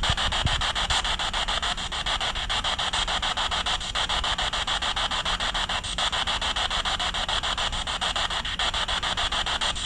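Spirit box sweeping through radio frequencies: a steady hiss of radio static chopped into rapid, regular stutters many times a second.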